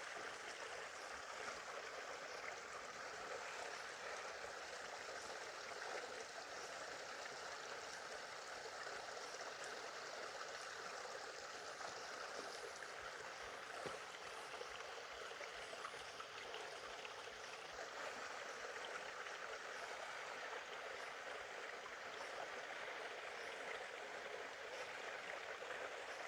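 A small, shallow stream trickling and babbling steadily, faint and even throughout.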